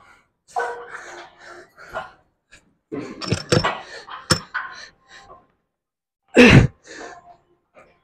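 A man breathing hard and making strained vocal sounds of effort, with a loud grunt that falls steeply in pitch about six and a half seconds in. A couple of sharp knocks come around the middle.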